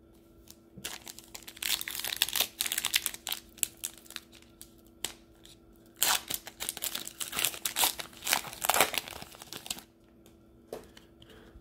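Plastic wrapper of a basketball trading-card pack being torn open and crinkled by hand, in two stretches of crackling: one starting about a second in, another from about six seconds to nearly ten seconds.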